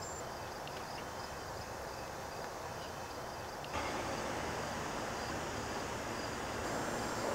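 Quiet outdoor ambience: a steady background hiss with no distinct event, stepping up slightly in level about four seconds in.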